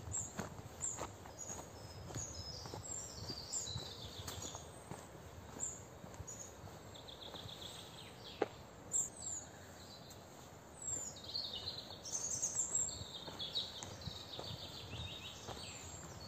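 Several songbirds singing in spring, with short chirped phrases and rapid trills, the trills thickest about halfway through and again near the end. Footsteps on a path go steadily underneath.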